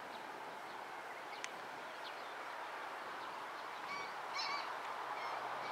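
A few short bird calls, some in quick pairs, about four to five seconds in, over a steady outdoor background hiss, with a single sharp click about a second and a half in.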